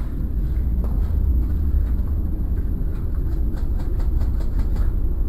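Steady, loud low rumble on the microphone, with a quick run of faint clicks, about six a second, a little past the middle.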